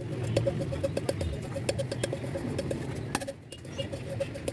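Metal tools clicking and clinking on an engine under repair, over a low rumble and a rapid, regular run of short chirps.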